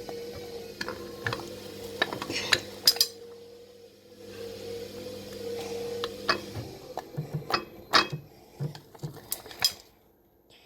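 A spoon clinking and scraping against a plate while stirring slime, with irregular sharp clicks, a quieter stretch about a third of the way in, and a near-silent moment just before the end.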